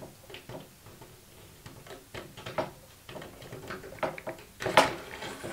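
Irregular light clicks and knocks of a home-made track clamp, a bar clamp fitted with a steel angle bracket and bolts, being handled and slid into the slot of a Bosch track-saw guide rail, with one sharper knock near the end.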